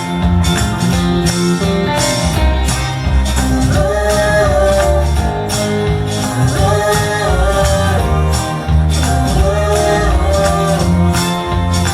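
Song with singing, guitar and tambourine over a steady bass beat, played through a Yamaha RX-V595 AV receiver and JBL Legacy LA-800 speakers. The voice comes in three phrases.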